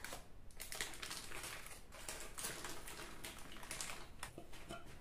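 Baking parchment crackling and rustling as it is peeled off the bottom of a baked sponge cake, in faint irregular crinkles.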